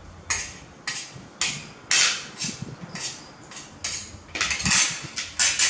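Metal spoon scraping and clinking against a ceramic plate, a string of sharp, irregular strokes about every half second, loudest about two seconds in and again near the end.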